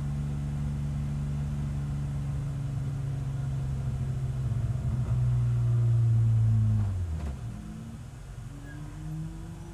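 BMW SpecE46 race car's 3.0-litre straight-six heard from inside the stripped cabin, running steadily at low road speed. It gets louder for a couple of seconds about halfway, then drops away sharply about seven seconds in, leaving a quieter sound as the car coasts down.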